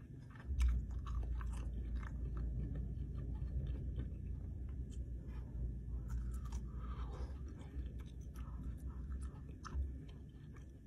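Close-up chewing and biting of a cooked sausage: wet mouth clicks and smacks, with a low rumble underneath that starts about half a second in and fades near the end.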